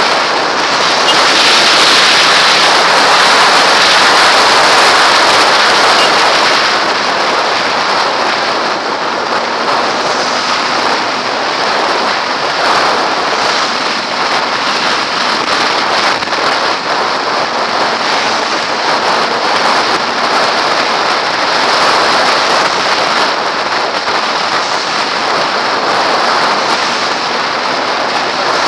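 Wind rushing steadily over the helmet camera's microphone on a moving motorcycle, a bit louder in the first several seconds. The Kawasaki ZX-6R's engine is faint beneath it.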